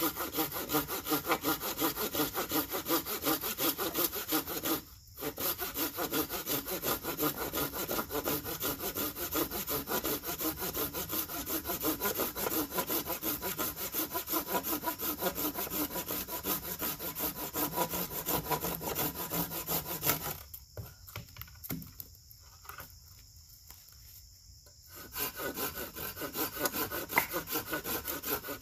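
Hand saw cutting firewood with steady back-and-forth strokes. The strokes stop briefly about five seconds in and again for several seconds past the twenty-second mark, then resume.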